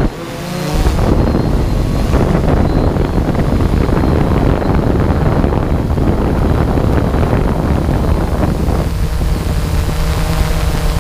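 A drone's motors and propellers running steadily, heard from the aircraft itself, with wind buffeting the microphone. The sound drops briefly right at the start, and a steady pitched hum stands out more clearly near the end.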